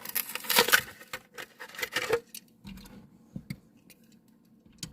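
A Hot Wheels blister pack being opened by hand: stiff plastic blister and card crackling and snapping in a dense run for about two seconds, then a few scattered clicks.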